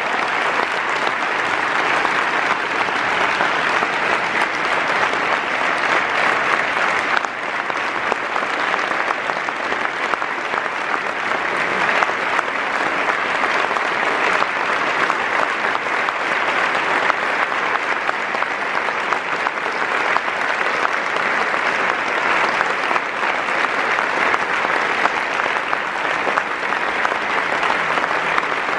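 A large audience clapping steadily in a standing ovation, a dense, even mass of hand claps.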